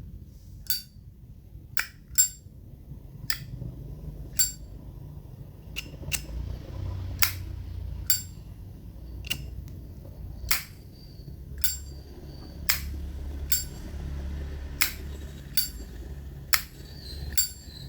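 A 1955 Zippo lighter's hinged lid flipped open and snapped shut over and over, giving sharp metallic clinks about once a second.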